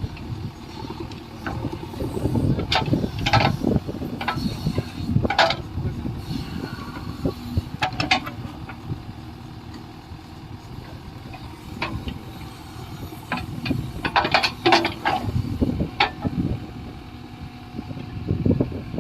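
JCB 3DX backhoe loader's diesel engine running under working load, rising and falling in loudness, with several sharp metallic clanks from the working machine, a cluster of them near the end.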